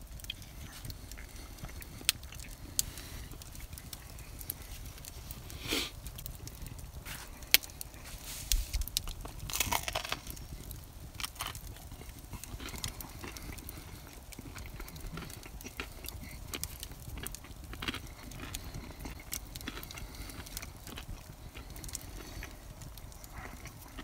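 Wood campfire crackling, with scattered sharp pops and a short, louder rush of noise about ten seconds in.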